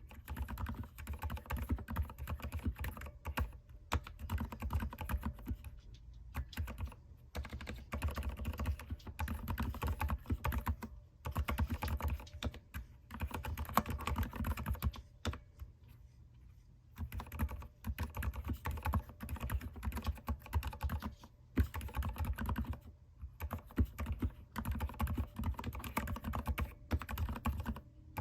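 Typing on a mechanical keyboard: quick runs of key clicks broken by short pauses every few seconds.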